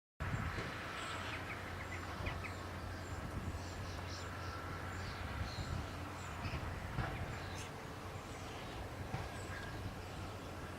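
Small birds chirping and twittering at intervals over a low, steady hum.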